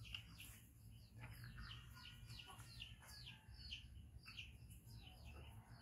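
Faint small birds chirping, with short falling chirps repeated a few times a second.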